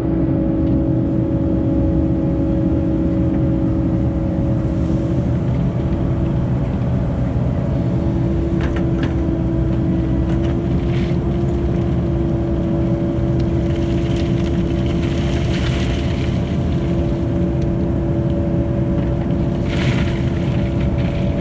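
Cat 308 excavator's diesel engine running steadily, its pitch shifting slightly a few times as the hydraulics take load, with a few short knocks.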